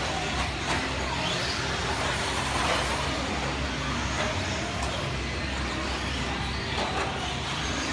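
Electric 1/10-scale RC racing trucks running laps on an indoor clay track: motor whine rising and falling over a steady hall din, with faint chatter in the background.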